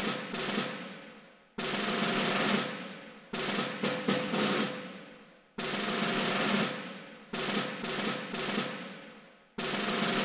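Ceremonial drum cadence for the flag hoisting: snare drum strokes and rolls, with a cymbal crash about every two seconds that rings away before the next.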